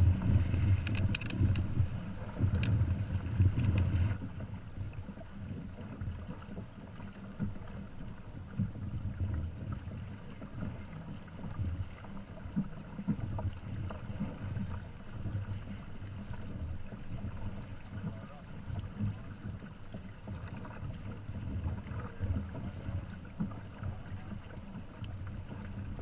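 Wind buffeting the microphone and water rushing along the hulls of a Hobie Tandem Island sailing kayak under way. The sound is loudest for the first four seconds, then drops to a steadier, softer rush.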